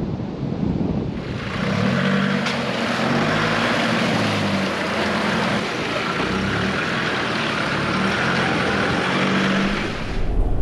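Four-wheel-drive engine running while the vehicle drives through a creek, with a loud steady rush of water. It starts about a second in after a moment of surf and wind, and stops sharply near the end.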